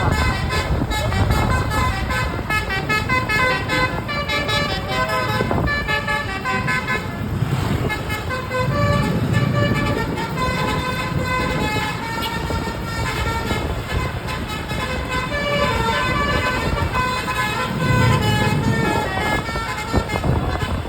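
Indonesian bus telolet horn playing a multi-tone melody, the notes stepping quickly from pitch to pitch without a break. A bus engine rumbles beneath it, swelling twice as buses pass.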